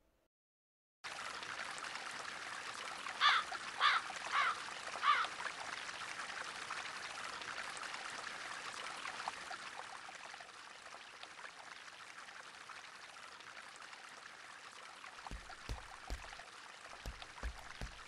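Steady rushing of a running brook, starting about a second in. A crow-like bird caws four times in quick succession a few seconds in, and a few soft low thuds come near the end.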